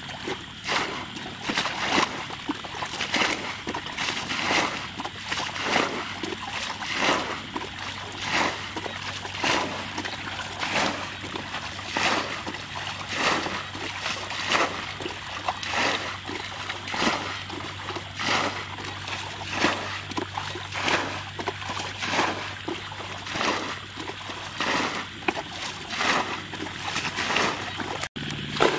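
A plastic bucket repeatedly scoops and flings muddy water out of a shallow channel as it is bailed by hand. The rhythmic splashes come about one a second.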